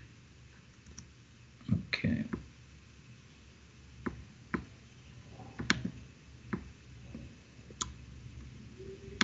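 Scattered, irregular sharp clicks from a computer mouse and keyboard being operated, with a couple of duller knocks about two seconds in.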